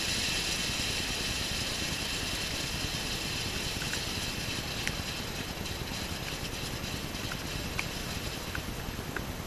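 Low-noise firework fountain hissing steadily as it burns, the hiss slowly fading, with scattered sharp crackles from about four seconds in.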